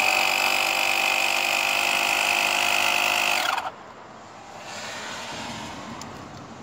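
Portable tire inflator's electric compressor running briefly: it spins up with a rising whine, runs steadily for about three and a half seconds, then winds down and stops.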